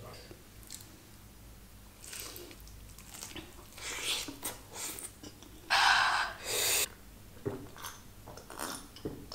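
Close-miked eating sounds: a person chewing and biting into food, here fried chicken lollipop and pizza, with scattered short crackles and two louder bursts about six seconds in.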